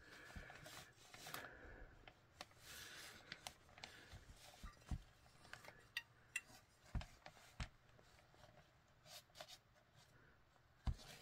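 Faint handling noise from a glazed ceramic cat figurine turned over in the hand: fingers rubbing on it, with scattered small clicks and knocks, the sharpest near the end.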